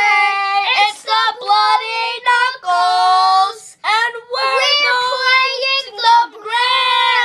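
A child singing high, held notes unaccompanied, in several short phrases, the last note held for about a second near the end.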